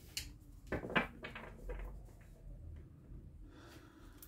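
Tarot cards being handled and laid down on a tabletop: a few short slaps and slides of card, the loudest about a second in, then softer ones.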